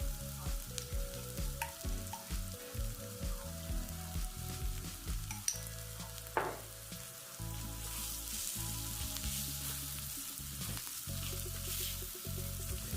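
Onions and Thai curry paste sizzling in hot oil in a pan, stirred with a spoon, with a few sharp ticks along the way.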